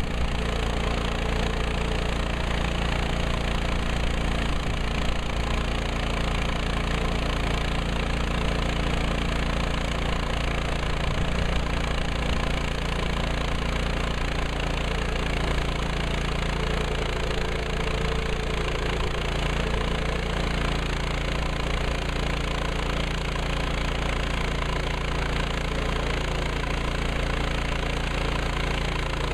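Woodland Mills HM130MAX portable band sawmill's gas engine running steadily under a constant drone, as the mill cuts red fir logs into cants.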